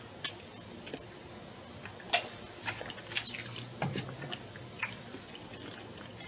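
A person drinking and chewing: quiet mouth sounds from a sip from a foam cup and chewing, with scattered small clicks and smacks, the sharpest about two seconds in.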